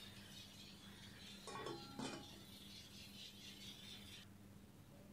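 An aluminium lid set onto an aluminium cooking pot: a brief clink with a short metallic ring between one and a half and two seconds in, over a faint steady hum.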